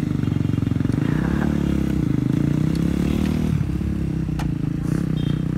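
Kawasaki KX250 two-stroke single-cylinder motocross engine running; the revs rise slightly about a second in and drop back a little past halfway.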